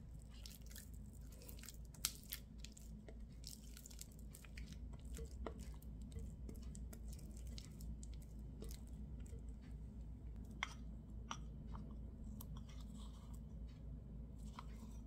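Pink silicone spatula stirring and scraping mascarpone in a glass bowl: soft wet squishing and scraping with irregular small ticks against the glass, and a sharper tap about 2 seconds in and again near 11 seconds, over a faint steady low hum.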